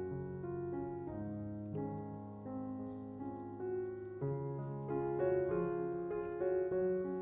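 Background piano music, a slow melody of held notes.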